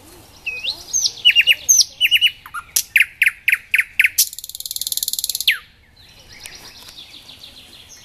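Nightingale singing. A phrase of sweeping whistled notes leads into a loud run of repeated sharp notes, about four a second, then a fast buzzing rattle that ends on a falling note about five and a half seconds in. Softer chirping follows.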